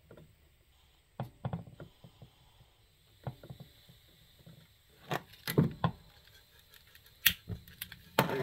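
A string of sharp clicks and metallic knocks, irregularly spaced and loudest about five to seven seconds in, as the burner of an old Coleman Peak 1 two-burner stove is worked at and lit with a lighter; the burner catches near the end.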